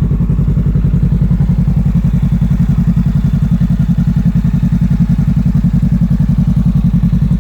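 Honda Rebel 500 parallel-twin engine running steadily with an even, rapid exhaust pulse.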